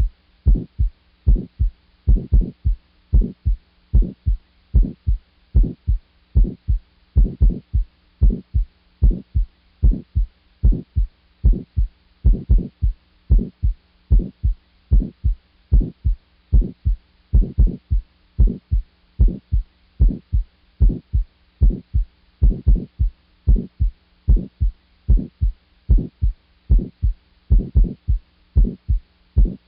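Recorded heart sounds from auscultation: a regular lub-dub heartbeat of short low thumps, with a steady faint hum underneath.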